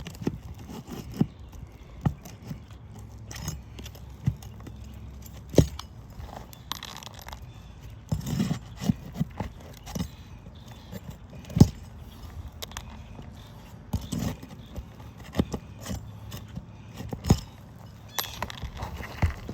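Irregular knocks, clicks and scrapes of hand work on an asphalt shingle roof, as shingles are pried loose from their seal strips and footsteps and tools knock on the roof deck.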